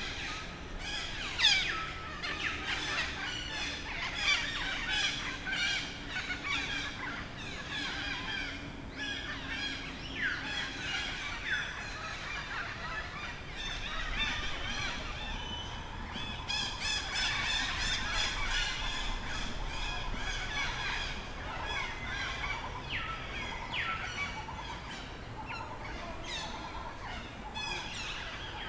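Many overlapping high-pitched animal calls: chirps, squeals and short sweeping cries, thick all the way through and densest from about halfway in.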